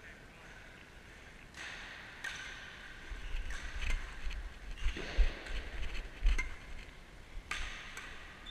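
Badminton play in a reverberant sports hall: several sharp racket strikes on a shuttlecock, with short squeaks. A low rumble comes from the body-worn camera moving with the player through the middle of the stretch.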